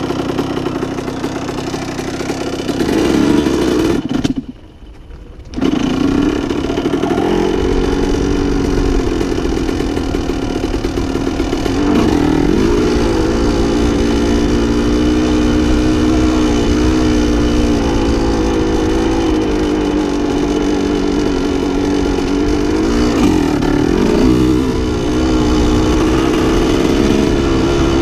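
1987 Yamaha YZ125's two-stroke single-cylinder engine running under way on a dirt trail, heard from the rider's helmet, its pitch rising and falling as the throttle opens and closes. The sound drops out briefly about four seconds in, then the engine comes back and keeps pulling.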